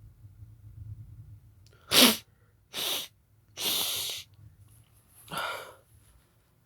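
A person sneezing after snuffing sneezing powder: one sharp, loud sneeze about two seconds in, then three more noisy bursts of breath over the next few seconds.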